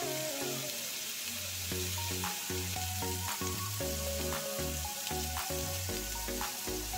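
Diced zucchini sizzling in a frying pan, a steady hiss under background music with a pulsing bass line.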